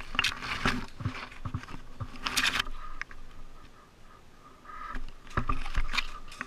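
Branches and twigs scraping and rustling against the camera and gear in irregular bursts, loudest about two seconds in, with a quieter spell past the middle.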